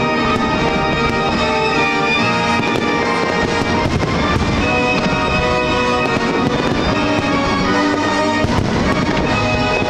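Fireworks shells bursting in repeated bangs over loud music with long held notes.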